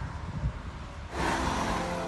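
Wind rumbling on the microphone at an open railway platform. About a second in, a louder sound with several steady held tones comes in.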